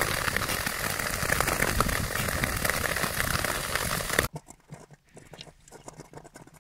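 Nordic touring skate blades gliding and scraping over lake ice close by, a dense hiss full of small crackles. It cuts off about four seconds in, leaving faint scattered ticks.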